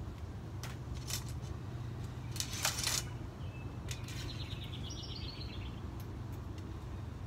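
Clicks and a short scraping rustle as a recurve bow and archery gear are handled, over a steady low hum. A bird sings a quick falling trill about five seconds in.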